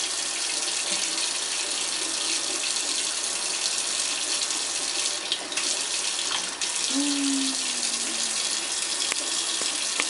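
Kitchen faucet running a thin stream into a stainless steel sink, a steady hiss of water, while an African grey parrot bathes in it. A few faint clicks and splashes, and a brief low hum that dips in pitch about seven seconds in.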